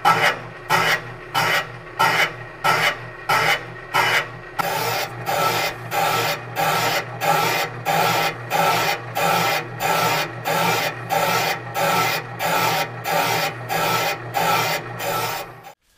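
Home-built boring bar's cutter bit truing up a counterbore in a tractor rear end casting: a rasping scrape once per turn of the bar, about twice a second, over a steady low hum. From about four seconds in the cut becomes continuous but still pulses with each turn, and it stops suddenly just before the end.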